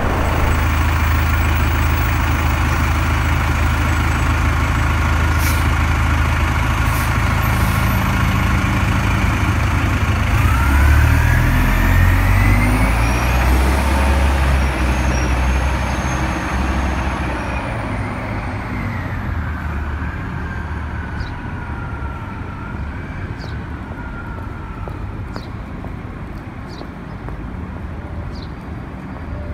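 City transit bus pulling away from the curb: a heavy low engine sound, with a whine that rises about ten seconds in and then slowly falls as the bus speeds up and moves off, the whole sound fading in the second half.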